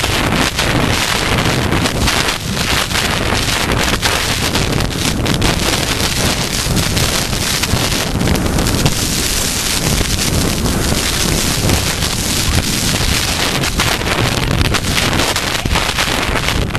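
Loud, steady wind noise buffeting the microphone of a camera carried by a rider at speed on horseback.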